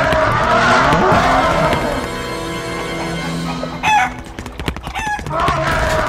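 Farm animal calls: a crowing call at the start and again near the end, with a lower, steady call in the middle.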